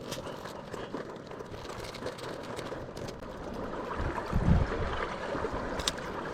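Water lapping and gurgling, with a short low rumble about four seconds in.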